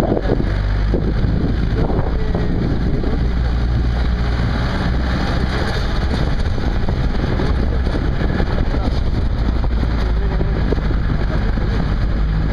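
A motor vehicle's engine running steadily, with the noise of a rough unpaved road, heard on board during a bumpy off-road ride.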